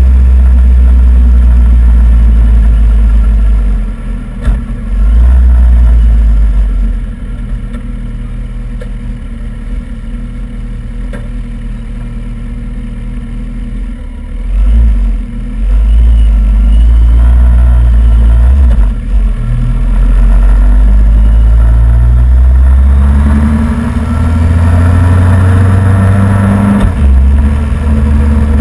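Motorcycle riding on the road, heavy wind buffeting on the microphone over the engine. The rumble eases off for several seconds about a third of the way in, then returns. Near the end the engine note climbs as the bike accelerates.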